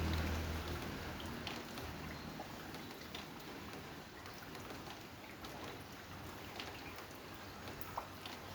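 Rain falling: a steady soft hiss with scattered drips and taps. A low hum fades away during the first second or so.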